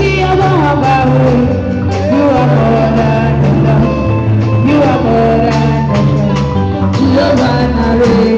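Live band playing: a woman singing lead into a microphone over electronic keyboard, bass guitar and drums, with a steady beat.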